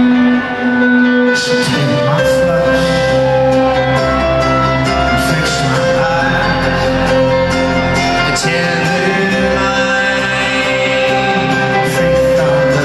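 Live folk-rock band music recorded from the crowd: guitars, upright bass, keyboard and drums playing sustained chords, with a deep bass coming in about a second in.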